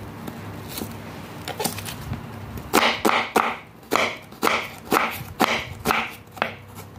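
Kitchen knife slicing through onion onto a wooden cutting board: a few faint cuts, then from about three seconds in a run of sharp chopping strokes about two a second.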